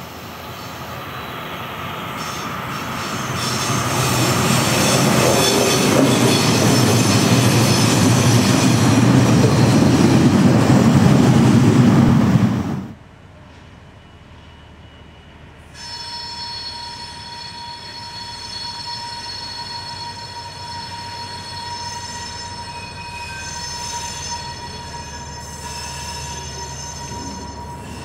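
A diesel locomotive hauling a train approaches and passes, its engine and wheel noise building to loud over about ten seconds before cutting off. A few seconds later, diesel-hydraulic locomotive 225 806 moves slowly on a tight-curved siding, running quietly with a steady high whine.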